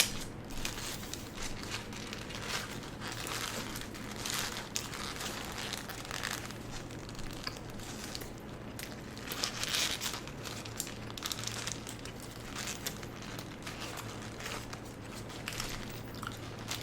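Close-miked crinkling and rustling of a paper burger wrapper in irregular bursts, with eating sounds mixed in.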